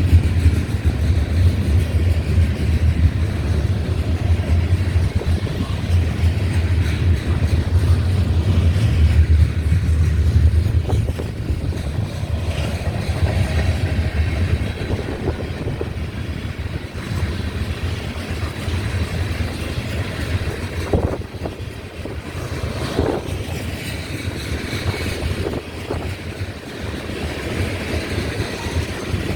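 Union Pacific freight train rolling past, a steady low rumble with wind buffeting the microphone, heaviest in the first ten seconds and easing after.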